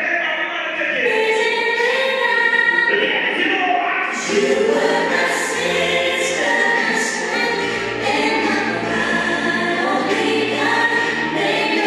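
Recorded music played from DJ decks: a song with several voices singing in harmony, and a bass line that comes in about four seconds in.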